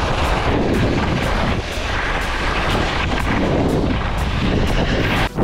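Wind buffeting the microphone in a deep rumble, over skis scraping down hard, icy snow. The sound drops out briefly near the end.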